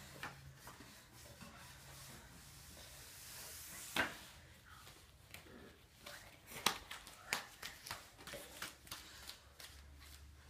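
A toddler sliding down a wooden slide ramp: a growing hiss of the body rubbing on the board that ends in a knock about four seconds in. After it come scattered knocks and taps of small hands and feet on the wooden climbing triangle.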